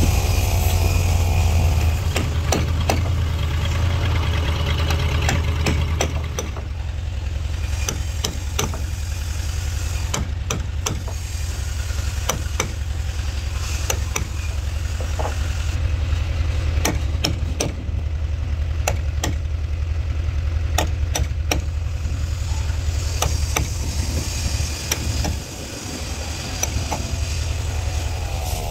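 Hammer striking a wood chisel again and again, cutting a notch into a hardwood boat timber. An electric drill runs briefly at the start, and a steady low engine drone continues underneath throughout.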